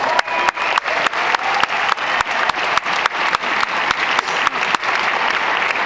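Crowd applauding, with one person's hand claps close by, about three or four a second, stopping shortly before the end.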